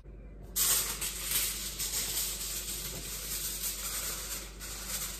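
Aluminium kitchen foil crinkling and rustling as it is handled and spread over a loaf tin. It is a dense, crackly rustle that starts about half a second in and keeps going.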